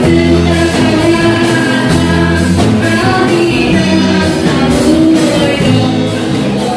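Live amateur band playing a song through amplifiers: two women singing into microphones over electric guitars, bass guitar and a drum kit.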